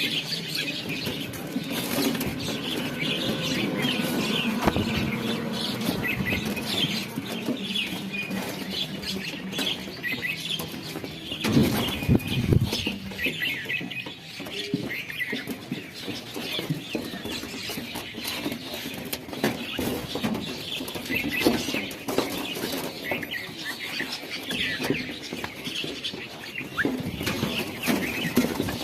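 A flock of small birds calling, many short chirps overlapping throughout. A faint low hum runs under the first third, and a brief low rumble comes about twelve seconds in.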